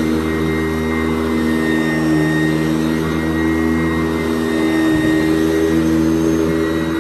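Sanitaire SC889B upright vacuum cleaner running steadily while vacuuming carpet: a constant motor hum with a whine and airflow rush, with a brief low bump about five seconds in.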